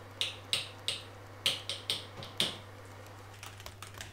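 A run of sharp, ringing clicks, unevenly spaced at about two a second, over the first two and a half seconds. Near the end, quick light computer-keyboard typing starts.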